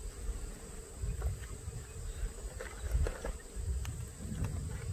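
Honeybees humming steadily around an open Langstroth hive, with irregular low rumbling on the microphone and a few light clicks.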